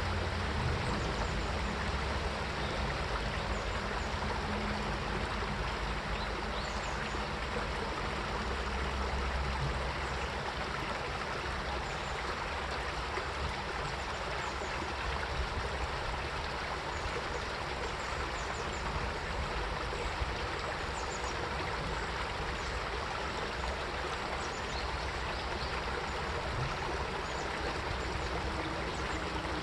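Mountain stream flowing steadily over rocks, a continuous rushing and gurgling of water.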